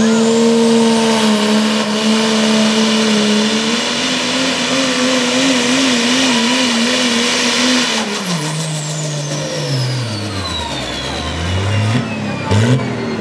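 Dodge Ram diesel pulling truck at full throttle under load dragging a sled, with a high turbo whistle over a steady engine note that wavers slightly. About eight seconds in, the engine note falls away and the turbo whistle winds down, followed by a few short revs and a couple of sharp cracks near the end.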